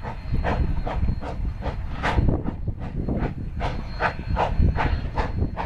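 Narrow-gauge steam locomotive No. 315, a 2-8-0, exhausting in an even chuff, about two and a half beats a second, as it hauls a freight train. Under the beat are a steady low rumble and a faint hiss.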